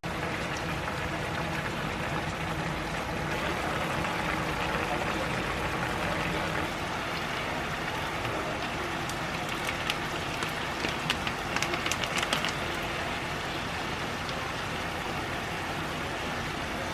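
Tteokbokki with sliced cabbage boiling in a pan: a steady bubbling hiss, with a run of sharp pops and crackles about ten to twelve seconds in.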